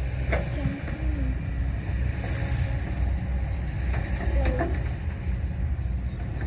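Heavy diesel construction machinery running with a steady low rumble.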